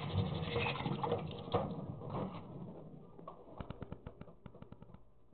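Kitchen tap water running into a metal sink while something is rinsed, fading out after a couple of seconds; then a quick, irregular run of light taps and clicks at the cutting board.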